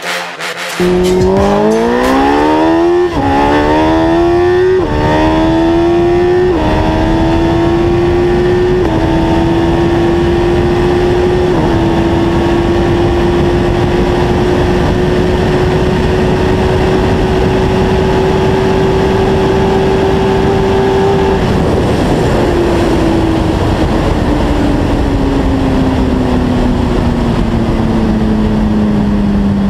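Suzuki Hayabusa's 1300 cc inline-four at full throttle, heard onboard: the engine note climbs and drops through five quick upshifts in the first dozen seconds, then holds steady at high speed under heavy wind noise. About two-thirds through, the note falls steadily as the bike slows.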